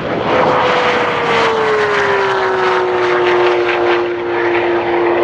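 A sports car passing at very high speed on a top-speed run. Its engine note falls in pitch as it goes by and pulls away, then holds steady, over a loud rush of wind and tyre noise.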